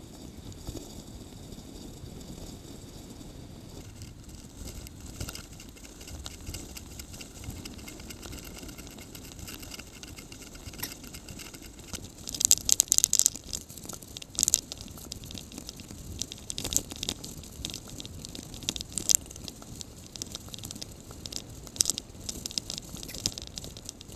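Bicycle ridden along a paved path, heard from a handlebar-mounted camera: steady tyre and wind noise with irregular rattling and clicking of the bike and mount, and a burst of loud rattles about halfway through.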